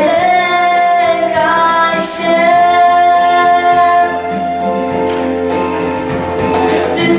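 A girl singing solo into a hand-held microphone, holding long notes, with music underneath.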